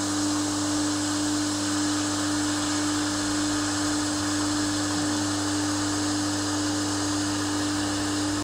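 Pressure washer running steadily with its trigger held open, a constant high hum over a hiss, as it pumps water into a welded aluminium tank to hydroform it; a fine jet of water sprays out of a leak in the pressurised tank.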